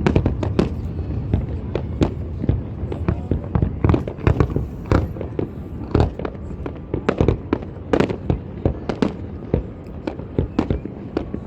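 Fireworks display: a rapid, irregular barrage of bangs and cracks, many overlapping, over a low rumble of distant bursts.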